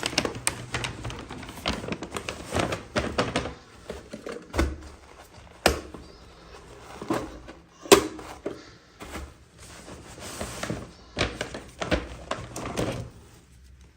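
Toys and their packaging being handled by hand: irregular clicks, taps and rustles, with a sharper knock about eight seconds in.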